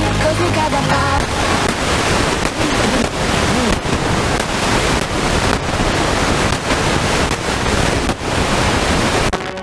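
FM interstation static: loud, even hiss from an Eton Grundig Executive Satellite portable radio's speaker as it is tuned across empty frequencies between stations. A station's music fades out in the first second, and the hiss breaks off right at the end as the next station comes in.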